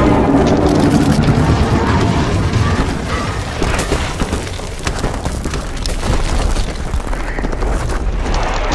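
Film sound effects of the petrified Kraken's stone body cracking and crumbling: a deep rumble full of sharp cracks and crashes of breaking rock, with orchestral score underneath. The rumble eases a little toward the end.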